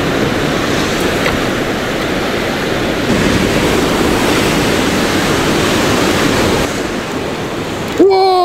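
Rough sea surf breaking against the rocks below, a steady rush of waves with wind buffeting the microphone. A brief pitched sound cuts in near the end.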